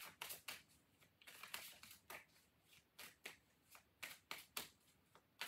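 Faint shuffling of a tarot deck by hand: a string of soft, quick card flicks, about two or three a second.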